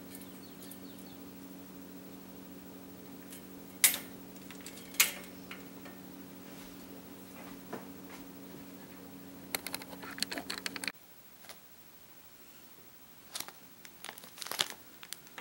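Sharp clicks of a plastic kitchen utensil knocking against a metal S-hook as it is hung on a wire rack, over a steady low hum. After an abrupt cut the hum is gone, and near the end a plastic wrapper crinkles as a packaged microfiber duster is handled.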